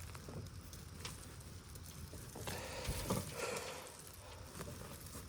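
Hands digging through loose potting soil, a faint crackling rustle of crumbling dirt with a brief louder scrape about three seconds in.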